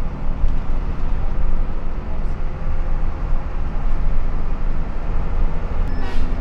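A bus running at highway speed, heard from on board: a steady, loud low rumble of engine and road noise. A brief higher-pitched sound comes in near the end.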